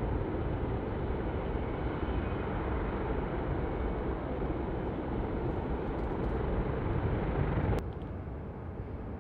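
Cargo jet's engines during departure: a steady, dense rumble with a hiss over it, which drops off suddenly about eight seconds in to a quieter, duller rumble.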